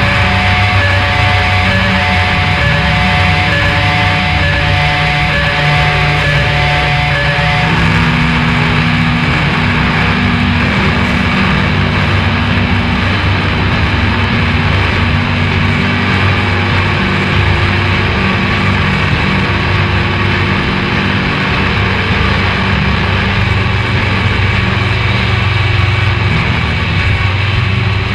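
Loud music: a dense, distorted guitar-driven drone of held notes. About eight seconds in, the higher held notes drop away and lower ones take over.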